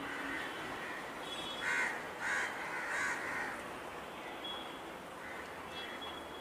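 A crow cawing three times, short harsh calls about a second and a half to three seconds in, over steady background noise.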